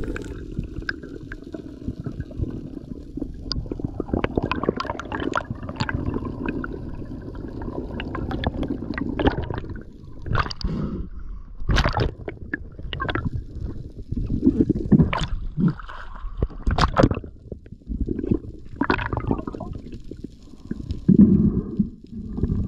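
Water sounds picked up by an underwater camera during a freediver's ascent: a steady low water rush at first, then irregular gurgling, sloshing and knocks in the second half, loudest just before the end.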